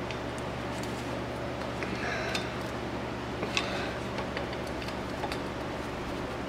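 A few light metallic clicks and taps, the sharpest about three and a half seconds in, from hand work on an ATV front wheel hub, over a steady low hum.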